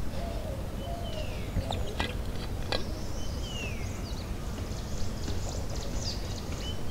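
A wild bird gives a short whistled call that slides down in pitch, repeated every two to three seconds, over a few sharp clicks of footsteps on a stony path.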